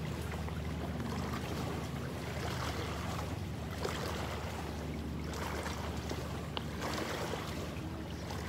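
An engine running steadily with a low hum, under wind and water noise, with a few faint ticks.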